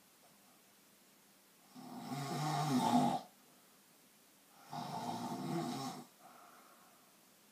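Snoring: two long snores, about three seconds apart, each lasting well over a second, the first building louder before it stops.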